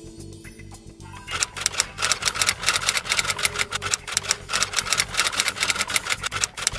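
Typewriter key-clicking sound effect: rapid, even clicks, several a second, starting about a second in and accompanying text being typed out on screen, with faint background music beneath at the start.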